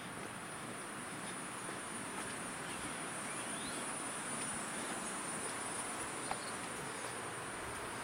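Insects, crickets or cicadas, giving a steady high-pitched buzz over an even background hiss.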